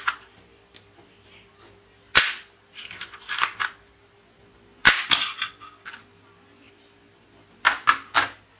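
Plastic toy guns being fired or dry-fired: sharp plastic clacks of trigger, hammer and spring action, single or a few in quick succession with pauses between, three close together near the end.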